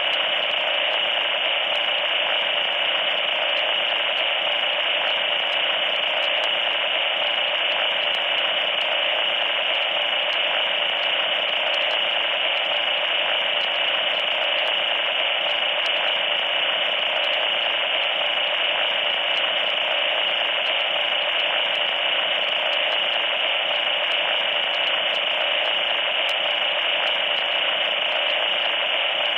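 Loud, steady static hiss like an untuned radio, thin and harsh with a bright, piercing edge, unchanging in level.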